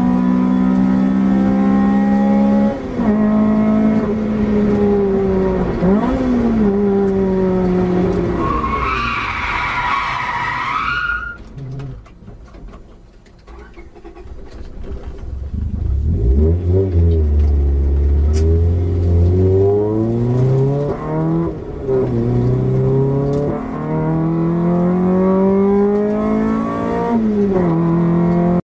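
Honda Civic SiR's 1.6-litre VTEC four-cylinder engine revving hard on track, heard from inside the cabin, its pitch stepping down at each gear change. About nine seconds in the tyres squeal for a couple of seconds as the car oversteers. The engine then falls away to a low note for a few seconds before revving up again through the gears.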